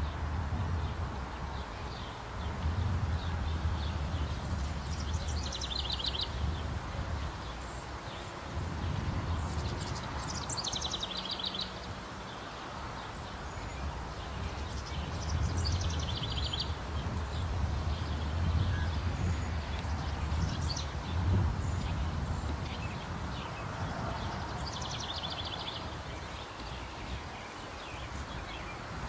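A small songbird singing a short, high trilled phrase four times, several seconds apart, over a steady low rumble.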